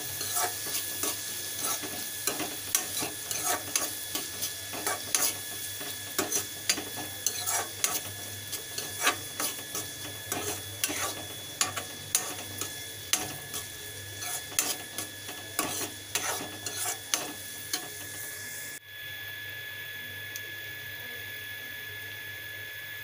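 A metal spoon stirring and scraping chopped onions and green chillies frying in oil in a metal kadai, with rapid, uneven clicks of the spoon against the pan over a steady sizzle. About three-quarters of the way through, the stirring stops suddenly and only the sizzling of the onions in the oil is left.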